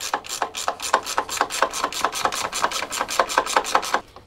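Ratchet wrench clicking rapidly and evenly, about seven clicks a second, as a bolt is turned out; the clicking stops just before the end.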